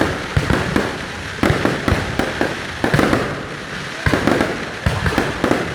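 Aerial fireworks display: a rapid, irregular barrage of bangs, several a second, with crackling between them.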